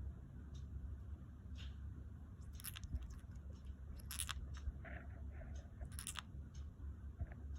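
Lovebirds making soft sleep sounds: short, scratchy, crunching clicks, three of them louder, with a few faint short chirps in between.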